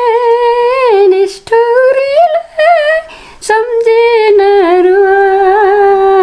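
An elderly woman singing a slow melody unaccompanied, drawing out long held notes with a wavering vibrato. She breaks briefly for breath about a second and a half in and again about three seconds in.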